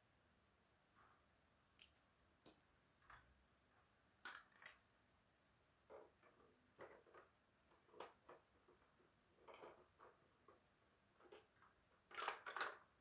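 Faint, scattered clicks and taps of small parts and tools being handled, with a quick louder run of clicks near the end.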